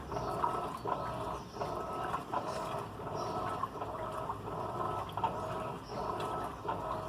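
Electrolux LAC16 washing machine running: motor hum with water sloshing, in a regular cycle that breaks off and restarts about every three quarters of a second.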